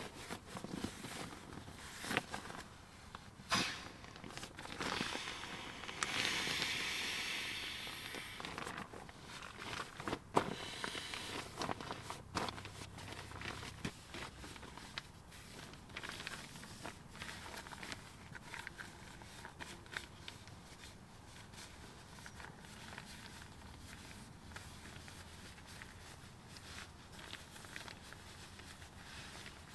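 Rustling and handling of an inflatable sleeping pad as it is pressed flat, folded and rolled up, with scattered clicks and taps. About six seconds in, a hissing rush fades out over a couple of seconds.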